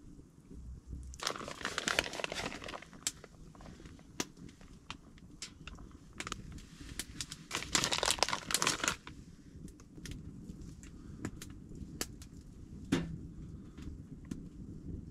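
Crinkling and rustling of packaging or paper being handled, in two spells of a couple of seconds each, with scattered small sharp cracks in between.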